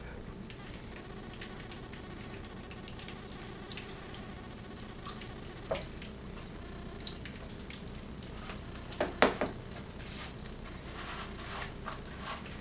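Breaded chicken cutlets shallow-frying in oil in a pan: a steady sizzle with scattered crackles, and a quick cluster of louder pops about nine seconds in.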